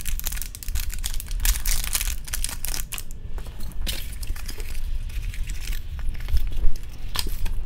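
Plastic packaging bags crinkling and rustling as they are opened and handled, with many irregular small clicks and taps.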